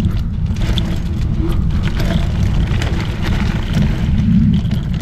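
Wind buffeting a microphone carried on a mountain bike riding fast down a dirt trail, a dense uneven low rumble, with the bike rattling and clicking over bumps.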